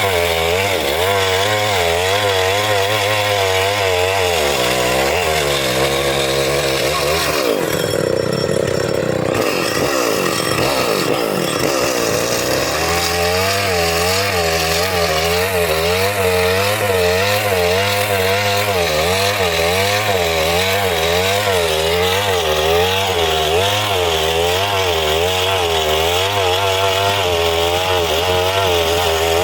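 Chainsaw running and cutting wood, its engine note wavering steadily. Between about 5 and 13 seconds in the pitch shifts and glides up and down, then it settles back into the steady cutting drone.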